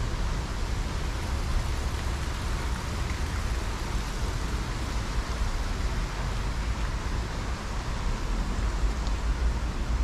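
Steady rushing of a mountain stream running full after heavy rain, over a low rumble.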